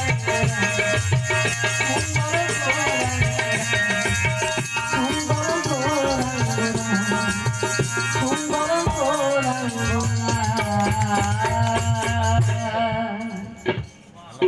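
Baul folk music: a singing voice with drum and rattle-like percussion, which stops about a second before the end.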